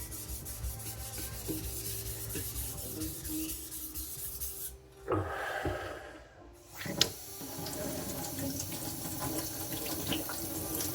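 A carbon-steel Chinese cleaver blade ground back and forth on a wet Naniwa Professional 1000-grit waterstone, thinning behind the edge with light pressure; the rubbing pauses briefly about halfway through, then carries on.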